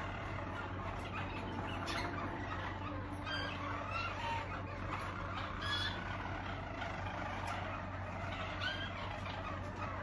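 Harzer Roller canaries singing, with short whistled notes and chirps scattered throughout, over a steady low hum.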